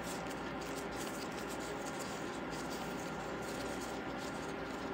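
Faint rubbing and small sticky clicks of disposable-gloved hands pressing glutinous rice dough closed around a mung bean filling, over a steady background hum.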